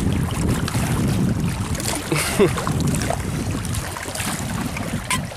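Mountain stream rushing over rocks, a steady water noise, with wind buffeting the microphone.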